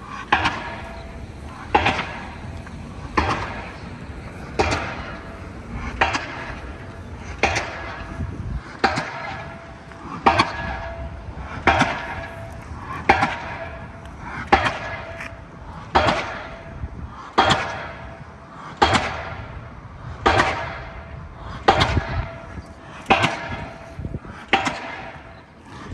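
Pile driver's hammer striking a pile about every second and a half, each blow a sharp bang with a metallic ring.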